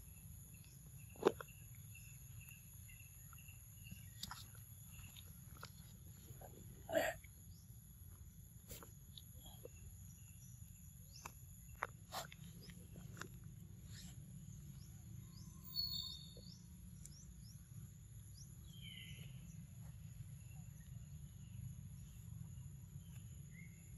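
Steady high-pitched insect drone, typical of crickets or cicadas, over a low steady rumble, with scattered short clicks and smacks, the loudest about a second in and about seven seconds in.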